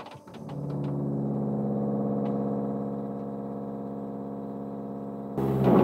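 Deepuro WS4A tankless reverse osmosis filter's pump motor running with the faucet open: a few clicks, then a steady hum that builds up over about a second and holds even.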